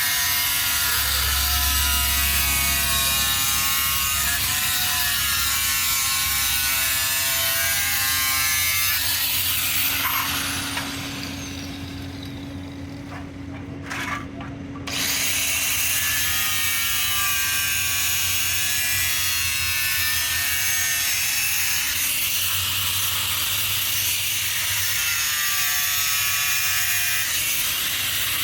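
A handheld power tool working plastic, its motor pitch wavering as the load changes. It winds down with a falling whine about ten seconds in, pauses for a few seconds, then starts up and runs again.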